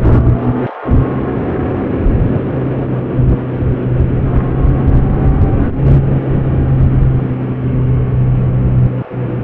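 Kawasaki Z900RS's inline-four engine running steadily under way, with a very short break in its note about a second in.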